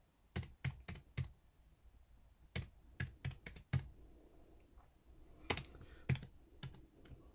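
Computer keyboard typing: sharp separate keystrokes in short runs, a quick run of about four, then about five, then a few slower ones near the end, with pauses between.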